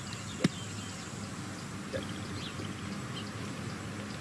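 A golf club strikes the sand in a long greenside bunker shot: one sharp thud about half a second in. Faint bird chirps sound over the steady outdoor background.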